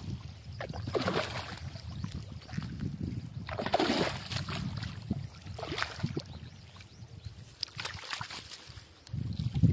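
A hooked fish thrashing and splashing in shallow water at the bank, in several separate splashes with the biggest about four seconds in, then flapping as it comes onto the grass near the end. A low rumble of wind on the microphone runs underneath.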